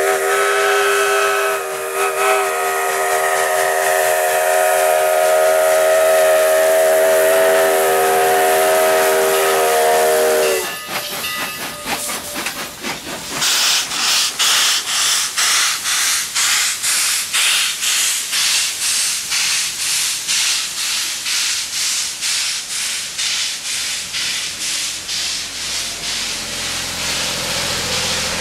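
Steam whistle of a Baldwin 2-8-0 steam locomotive sounding one long blast of several notes together, about ten seconds, then a short toot. The locomotive then works past close by, its exhaust chuffing about twice a second and growing fainter near the end as the coaches roll by.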